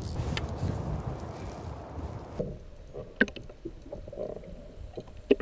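Low rumbling wind and water noise on a boat, then about two and a half seconds in the sound turns abruptly muffled and dull, as heard through an underwater camera, with scattered sharp clicks and knocks.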